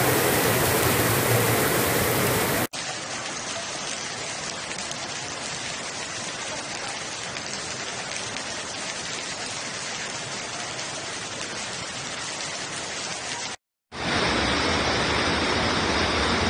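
Rushing floodwater from a river in flood, a steady even rush that is loud for the first few seconds. It drops abruptly to a quieter steady rush, cuts out for a moment near the end, then returns louder.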